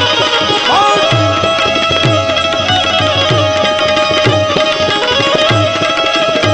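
Instrumental devotional music: an Indian banjo (bulbul tarang) plays a melody, with one note sliding up about a second in and then held, over a repeating pattern of deep hand-drum strokes.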